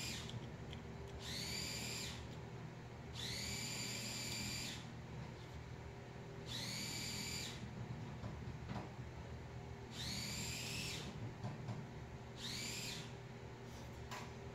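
A high whistling call repeated about five times, each a second or so long, sliding up at its start and then holding steady, over a low steady hum and a few faint clicks.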